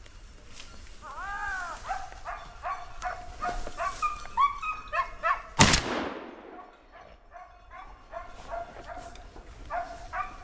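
Boar-hunting dogs barking and yelping in quick, high-pitched bursts. A single loud gunshot cracks about five and a half seconds in and echoes briefly, and the dogs bark again a couple of seconds later.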